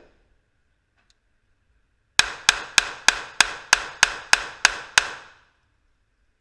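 Ten rapid gunshots from a firearm, fired about three a second in a quick even string, each with a short ringing tail.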